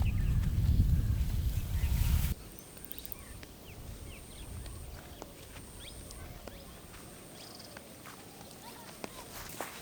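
A loud low rumble cuts off abruptly about two seconds in. It leaves quiet countryside ambience with scattered short bird chirps and a steady high-pitched tone.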